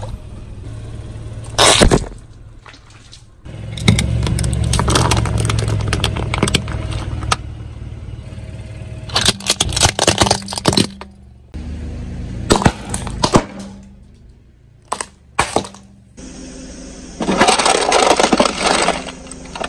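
A car tyre crushing objects one after another. A sharp crack comes a couple of seconds in, plastic snaps and cracks as a toy excavator breaks about halfway through, and a long metal crunching is heard near the end as a tin cookie box is flattened. A low engine hum runs between the crushes.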